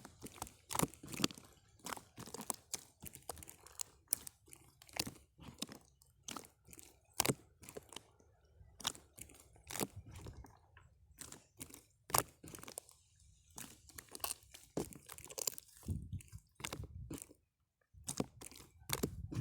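Irregular crunching and sharp clicking close to the microphone, a few clicks a second with short pauses, and a brief silent break near the end.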